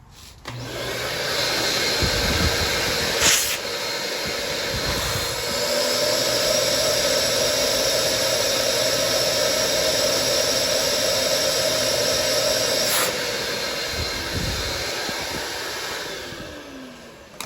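Vacuum tester hissing steadily for about sixteen seconds as it draws on a freshly lapped engine valve, with a click soon after it starts and another near the end. The valve seat still leaks a little.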